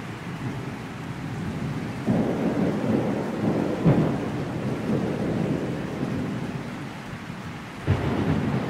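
Thunderstorm: steady rain with rolling thunder. One roll of thunder starts suddenly about two seconds in, and another starts near the end.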